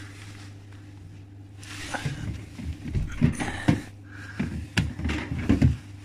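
Plastic clicks and knocks from the fridge's drawers and shelves being handled, a run of clunks starting about two seconds in, over a steady low hum.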